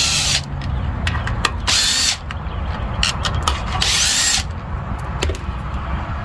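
Cordless drill-driver running in three short bursts about two seconds apart, backing screws out of a small engine's plastic air-filter housing.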